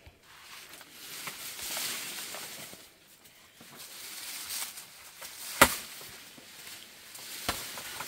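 Rustling of sweet potato vines and leaves as they are pulled and handled, in two spells, with a sharp click about five and a half seconds in and a fainter one near the end.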